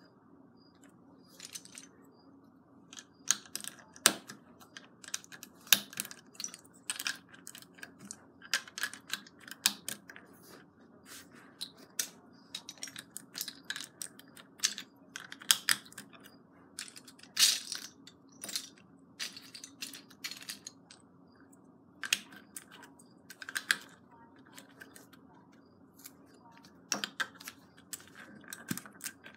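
Plastic LEGO bricks clicking and clacking as they are handled and pressed onto a baseplate: sharp, irregular clicks.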